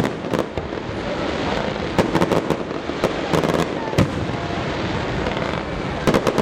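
Fireworks display: aerial shells bursting in sharp bangs at irregular intervals, several in quick succession, over a steady background rumble and crackle.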